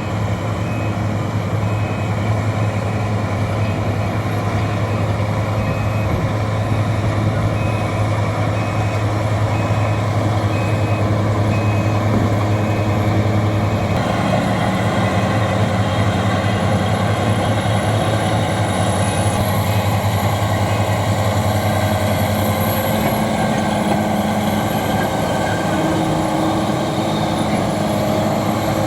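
Heavy diesel bulldozer engine running under load, with a steady deep drone. A reversing alarm beeps faintly and repeatedly through the first half. About halfway through the engine note shifts, as the machine changes speed or load.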